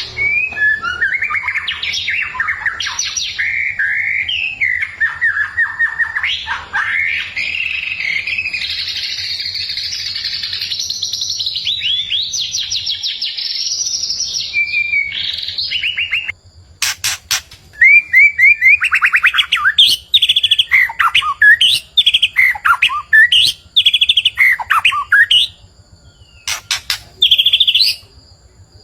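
White-rumped shama singing a varied song of quick whistled phrases and rapid trills, broken by two short pauses that hold a few sharp clicks.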